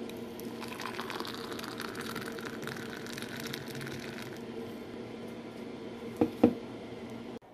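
Date milkshake poured in a thick stream into a glass, splashing and frothing as it fills, easing off about four seconds in over a steady low hum. Two sharp knocks follow about six seconds in.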